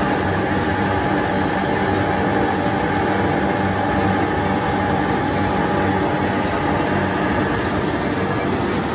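Large automatic three-colour printing, slotting and die-cutting machine for corrugated cartons running: a steady, loud mechanical noise from its rollers, gears and chain drives, with faint steady whining tones over it.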